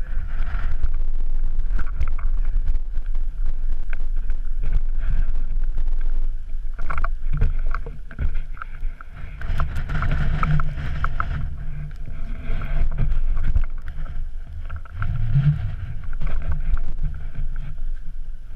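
Steady low rumble of wind and movement noise on a body-worn GoPro's microphone, with scattered clicks and scrapes of boots and trekking poles on snowy rock.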